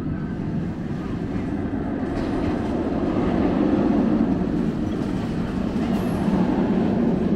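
Runaway Mine Train roller coaster's train running along its steel track: a steady rumble of wheels on rail that grows louder over the first few seconds as the train comes past, then holds.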